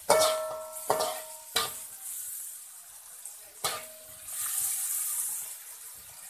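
Shallots and tomato sizzling in hot oil in a metal wok while a metal spatula stirs them, knocking against the pan about four times, the first knocks leaving a brief metallic ring.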